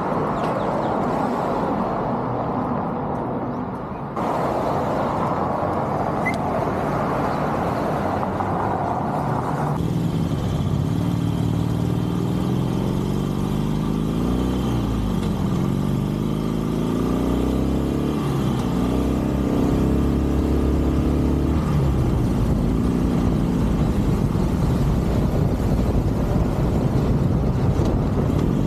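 Harley-Davidson Sportster Forty-Eight's air-cooled 1200 cc V-twin running on the move from about ten seconds in, its pitch climbing and dropping again and again with throttle and gear changes, then running steadier and a little louder near the end. Before that there is a steady rushing noise of wind and traffic.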